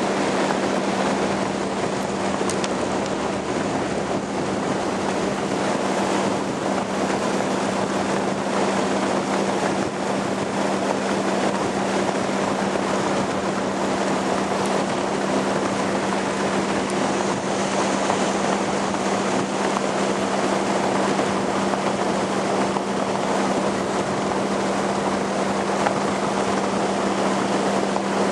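Motorboat running steadily at speed: a constant low engine hum under a continuous rush of wind and water.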